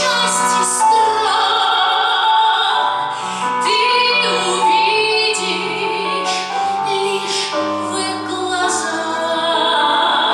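A woman singing an aria in operatic style, with long held notes and vibrato over instrumental accompaniment.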